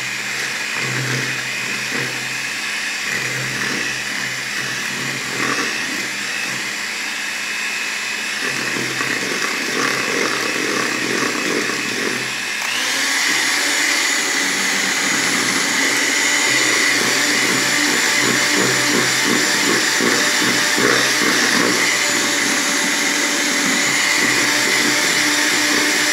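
Electric hand mixer running steadily, its twin beaters whisking butter, egg and sugar cake batter in a bowl. It gets louder about halfway through and holds there.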